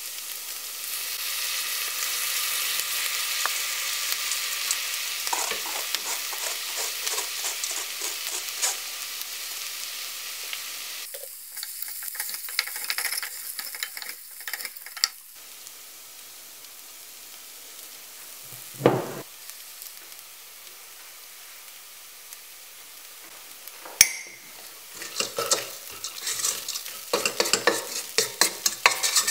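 Red lentils and chopped onion sizzling in hot oil in a pot while being stirred, the spoon scraping through them in bursts of strokes. The sizzle is loudest at first and then dies down, and a couple of sharp knocks stand out later on.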